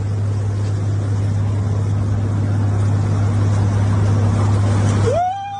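Motorboat running at speed: a steady engine hum under the rush of water along the hull. It cuts off suddenly about five seconds in, and a short rising call begins just before the end.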